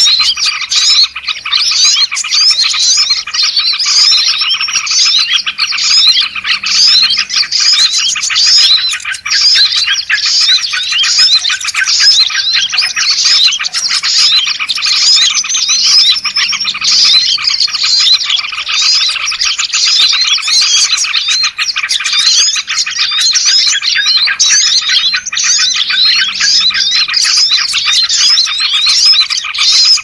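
Dense, continuous chorus of many small songbirds chirping and calling over one another, loud and unbroken: a 'ribut' (agitated, noisy) bird-lure recording of the kind played to draw wild small birds in.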